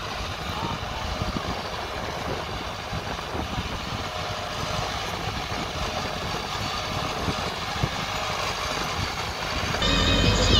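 Massey Ferguson 385 tractor's diesel engine running steadily as it pulls a heavily loaded sugarcane trolley. Louder background music comes in near the end.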